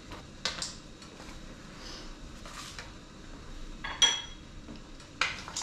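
Kitchen utensils handled around a stainless steel pot of melting chocolate: a few soft knocks and scrapes, and one sharp, ringing metal clink about four seconds in.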